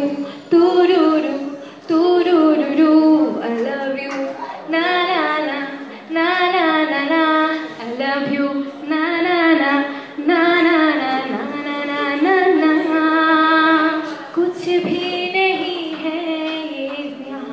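A woman singing a melodic song in phrases of a second or two, the soundtrack of a song mashup.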